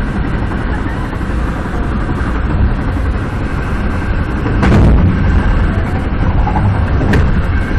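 Metra BNSF commuter train running at speed: a loud, steady rumble of steel wheels on the rails, with two sharp bangs, one a little past halfway and one near the end, as the wheels strike track switches and rail joints.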